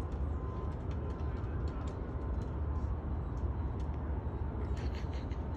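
Steady low outdoor background rumble, with a few faint ticks scattered through it.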